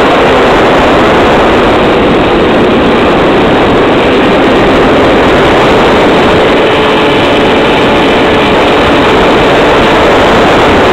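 Loud rushing wind noise on the wing-mounted camera's microphone of a flying model airplane, with the faint steady whine of its motor and propeller underneath.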